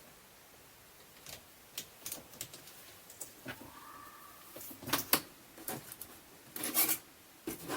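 Scattered light clicks and taps of wires and small tools being handled at a soldering job, with louder clusters about five seconds in and near the end.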